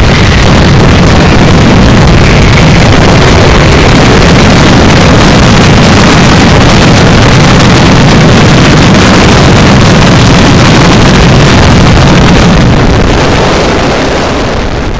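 A dense, continuous barrage of fireworks and firecrackers merging into one steady roar that overloads the microphone, easing off near the end.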